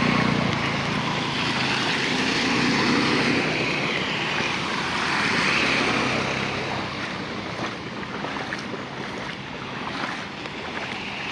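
Floodwater flowing across a road in a steady rushing wash. In the first second a motorbike that has just ridden through the water is heard moving off.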